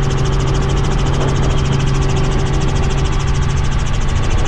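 Tour helicopter's engine and rotor running steadily in flight during a climb: a loud, even drone with a fast, regular pulsing.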